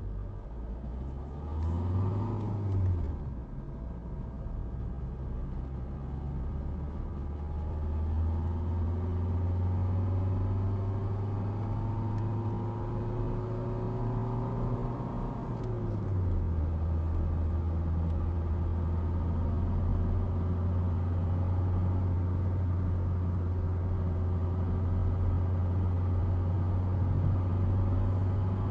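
Car engine and road noise heard from inside the cabin while driving. The engine note climbs slowly as the car accelerates, drops suddenly about sixteen seconds in at an upshift, then holds steady at cruising speed.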